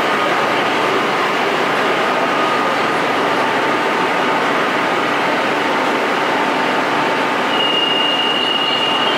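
Madrid Metro 9000-series train standing at a platform with its doors open, its onboard equipment giving a steady hum and hiss. Near the end a single high warning tone sounds for about two seconds: the signal that the doors are about to close.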